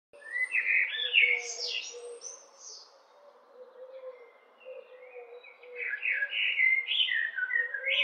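Male Eurasian blackbird singing: two phrases of fluty, warbling notes ending in higher twitters, one just after the start and another from about six seconds in, with a quiet pause between.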